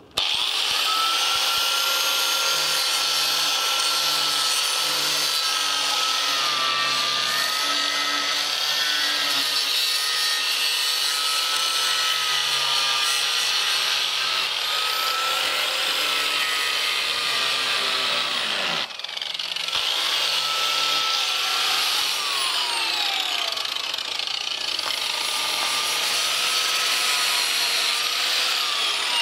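Electric angle grinder running with its disc worked along the curved edge of a wooden plank board, grinding the wood smooth; a high whine wavers as the load changes. About 19 seconds in the motor winds down and starts straight up again.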